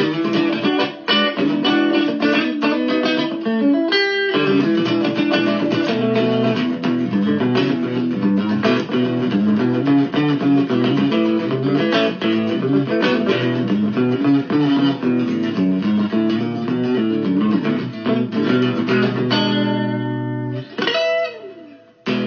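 Guitar music: quick plucked notes played steadily, with a sliding note near the end before it cuts off.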